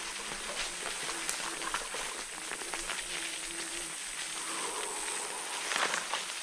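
Leaf litter and twigs crackling and rustling as the electric scooter is moved over rough forest ground, a steady mass of small crunches.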